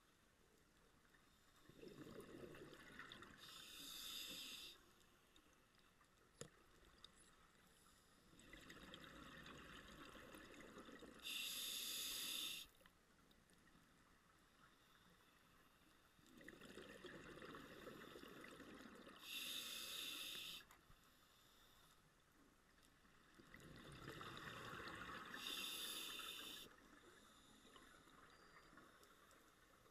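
Scuba diver breathing through an open-circuit regulator underwater: four slow breaths about seven seconds apart, each a bubbling exhale of two to three seconds ending in the brief high hiss of the regulator on the inhale, with quiet pauses between.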